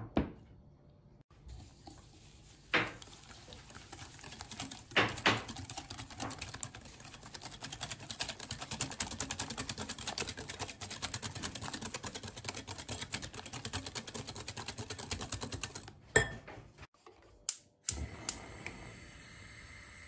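Wire balloon whisk beating eggs and sugar in a glass bowl, its wires clicking against the glass in a fast, even ticking that stops about three-quarters of the way through. A few sharp knocks come before it.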